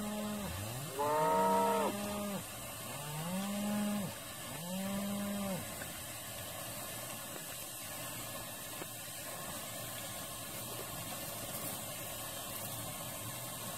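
Cattle mooing: four calls in quick succession in the first six seconds, each with a pitch that rises and falls, the second the longest and loudest, starting with an upward glide. After that only a steady background hiss remains.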